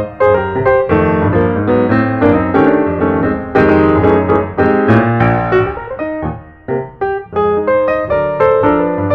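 Background piano music: a run of quick notes over lower chords.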